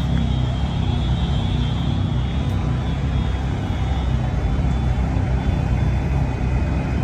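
Heavy-haul semi tractor's diesel engine running steadily and low under load as it hauls an oversize prestressed concrete bridge beam.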